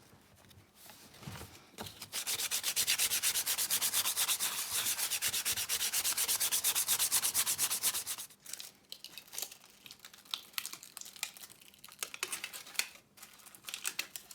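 Rubber inner tube being roughened around the puncture with an abrasive before gluing a patch: fast back-and-forth scraping strokes, many a second, for about six seconds, then a few scattered handling clicks and rustles.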